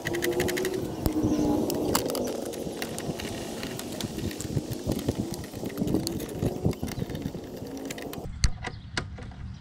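Light clicks and clinks of a metal license plate and its small bolts being handled and fitted to a motorcycle fender eliminator, over faint indistinct talking.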